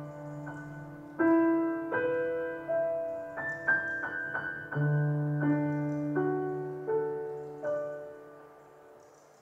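Slow, gentle piano music: single notes and soft chords struck one after another, each ringing and fading, dying away near the end.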